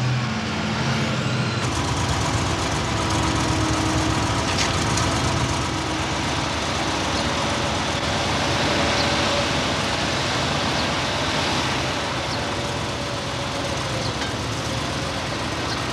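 Heavy engines of self-propelled modular trailer power packs running steadily. The sound changes abruptly about two seconds in, then settles into an even machinery drone.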